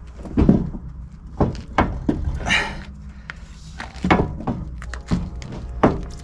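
Irregular metallic knocks and clunks, about six over several seconds with a brief scrape in between, as the front suspension and steering linkage of a jacked-up Datsun 510 are worked by hand.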